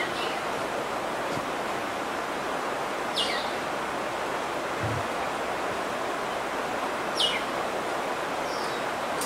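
Outdoor forest ambience: a steady rushing background noise, with a bird giving short, sharp, downward-sweeping calls a few times, about four seconds apart.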